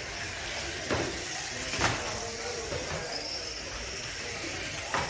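Small electric radio-controlled cars racing on a carpet track: a steady hiss of motors and tyres with a high motor whine that comes and goes. There are sharp knocks about a second in, near two seconds and near the end.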